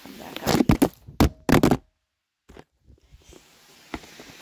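A smartphone falling onto the kitchen floor, heard through its own microphone: a clatter of several sharp knocks as it hits and tumbles, then the sound cuts out for about half a second. Faint knocks and scrapes follow as it is picked up.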